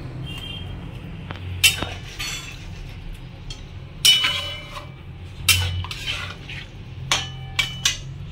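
Metal spatula clinking and scraping against a metal kadai while stirring a yogurt fish curry. There are several sharp ringing clinks, the loudest about four seconds in and a quick cluster near the end, over a steady low hum.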